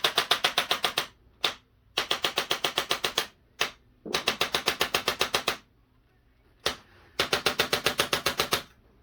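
Rapid-fire mechanical clicking during a chiropractic treatment: about ten sharp clicks a second in four bursts of one to one and a half seconds each, with a single click between bursts.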